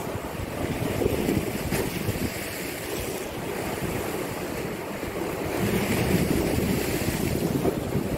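Sea waves washing against a sloping concrete seawall, with wind buffeting the microphone. The surf swells about a second in and again louder past the middle.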